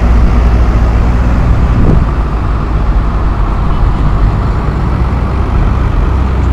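Diesel engines of a line of farm tractors running close by as they drive slowly past, with a short rising engine note about two seconds in.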